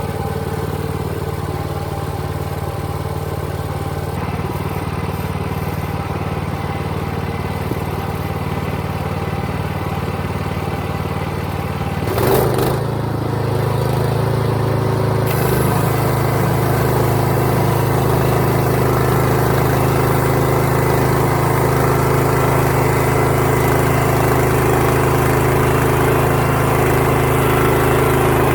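Band sawmill's engine running steadily. About twelve seconds in there is a brief clatter, after which the engine runs louder, and a few seconds later a steady hiss joins it.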